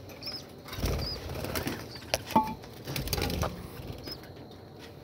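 Small pet birds rustling and fluttering, in two short spells, with a few brief high chirps and one lower chirp about halfway through.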